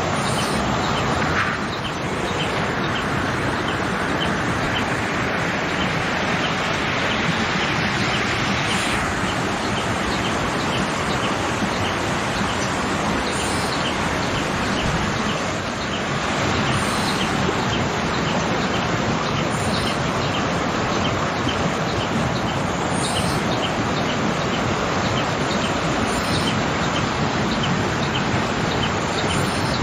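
Waterfall rushing as a steady hiss of falling water, with a bird chirping short high notes over it, about two a second.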